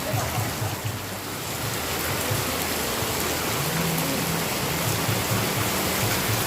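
Heavy rain falling, a steady even rush of noise.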